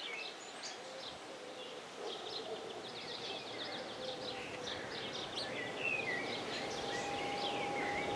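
Birds singing and chirping from the trees over steady outdoor background noise, with a faint steady tone coming in about six seconds in.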